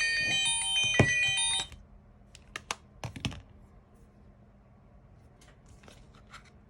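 A phone's alarm ringtone chiming a melody, which cuts off suddenly about a second and a half in. Scattered light taps and clicks follow, as of the phone being handled.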